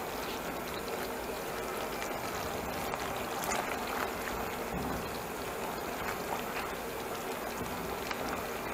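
Thick barbecue sauce simmering in a nonstick pan over a low gas flame, bubbling steadily with a few small scattered pops; the sauce has cooked down to thick and done.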